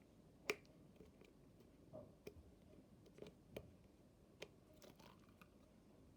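Quiet handling of slime in a plastic container: a sharp plastic click about half a second in, then scattered soft clicks and squishes.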